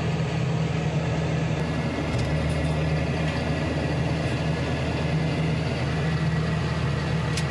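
John Deere 6420 tractor's four-cylinder diesel engine running steadily, heard from inside the cab, with a faint steady high whine over it.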